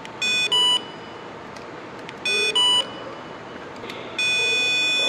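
Electronic beeping from a handheld power tester switching current to a fuel pump on the bench. There are two quick two-tone double beeps, then one long steady beep near the end.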